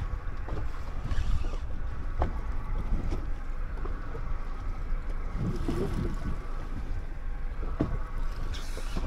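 A boat under way: its motor runs steadily beneath a low rumble of wind on the microphone.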